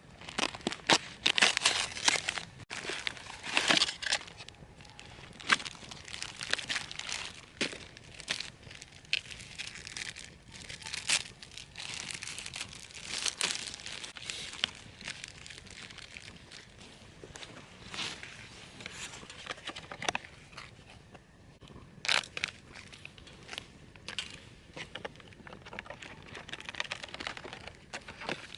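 Irregular crinkling and crumpling of something being handled, with sharp rustles and clicks, busiest in the first four seconds and with another burst about 22 seconds in.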